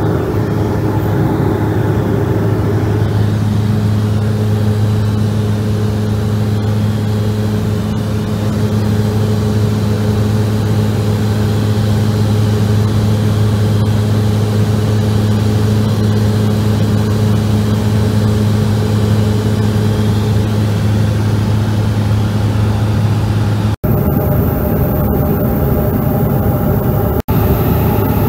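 Steady drone of a small twin-engine propeller plane's engines and propellers in cruise, heard inside the cabin as a low, even hum with a second tone joining about three seconds in.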